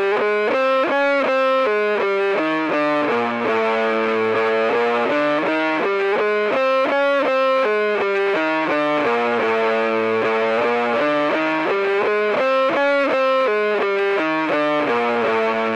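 Soundtrack music: a distorted electric guitar playing a fast line of single notes that changes pitch several times a second and repeats its pattern, at an even loudness throughout.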